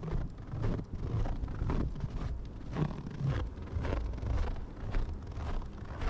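Footsteps crunching through fresh snow at a steady walking pace, about two steps a second, with wind buffeting the microphone as a low rumble.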